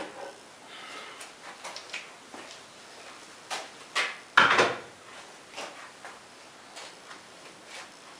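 Scattered clicks and knocks of hands handling metal tools and parts, with a sharp knock at the start and a louder sliding clatter about four and a half seconds in.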